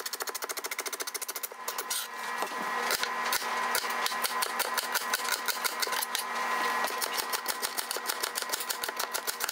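Kitchen knife chopping vegetables for a mirepoix (onion, carrot, celery) on a cutting board: quick, even strokes at several a second, fastest in the first second or so.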